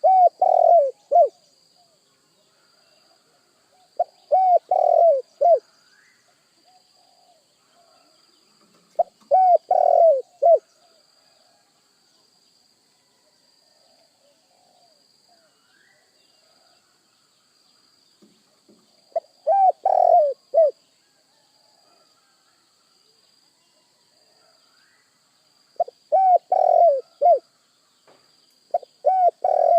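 Spotted dove (tekukur) cooing: six short phrases of a few quick, rounded coo notes, spaced irregularly several seconds apart.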